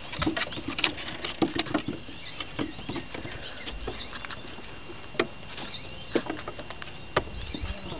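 Weimaraner puppies' paws pattering and clicking on wooden deck stairs as they scramble up, with a few louder knocks. Short high chirps repeat in the background.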